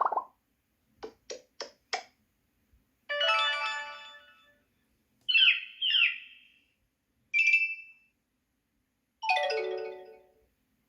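A run of short stock Xiaomi Mi Mix 3 alert tones played one after another with brief silences between them: four quick pops, then a bright chime, a pair of sweeping tones, a short two-note tone and another chime.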